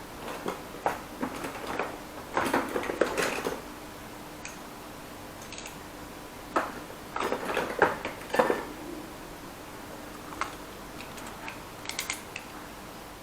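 Light clicks and taps of a plastic pin header and circuit board being handled and fitted together, coming in three bouts: at the start, around the middle and near the end.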